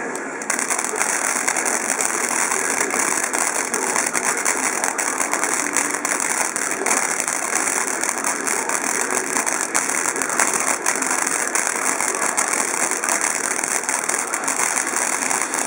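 Ground fountain firework spraying sparks: a steady hiss full of dense crackling, which steps up about half a second in.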